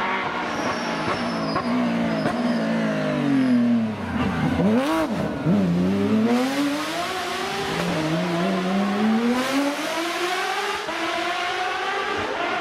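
Porsche rally car engine slowing with its pitch falling, a couple of quick throttle blips at the low point, then revving up again through the gears as it accelerates away, with a brief drop in pitch at each upshift.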